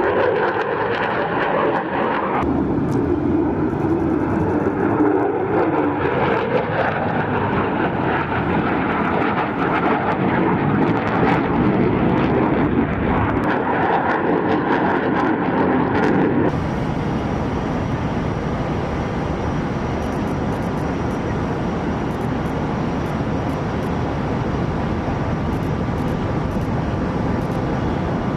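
Aircraft engine noise, loud and continuous. About two-thirds of the way through it changes abruptly to a duller, steadier noise.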